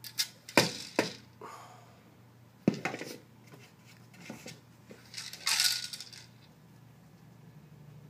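Dry kibble rattling and clattering inside a hard plastic Buster Food Cube as a dog noses and tips it. There are several sharp knocks of the cube in the first three seconds, and a longer rattle of tumbling kibble about five to six seconds in.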